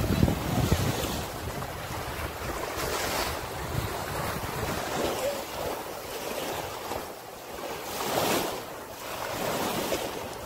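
Small waves washing up on a sandy beach, the surf rising and falling, with wind buffeting the microphone.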